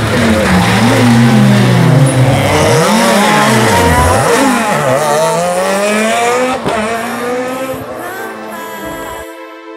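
Rally car engine revving hard, its pitch climbing and dropping again and again with gear changes and lifts of the throttle. It fades away and cuts off abruptly near the end.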